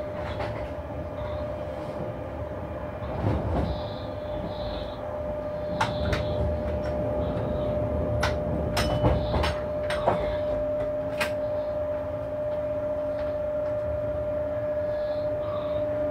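Electric locomotive running under way, heard inside the driver's cab: a steady whine over a low running rumble, with a scatter of sharp clicks and knocks in the middle.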